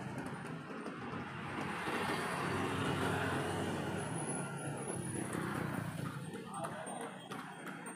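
Street traffic: small motorbike engines running and passing, with a steady road hum, heard from a moving bicycle. A few light clicks near the end.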